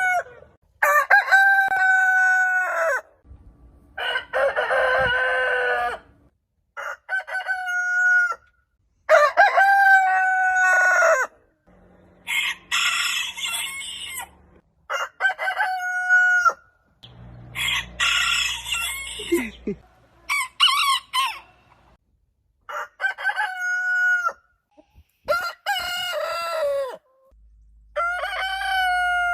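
Roosters crowing one after another, about ten crows in a row, each two to three seconds long and ending in a falling note, divided by short sudden silences.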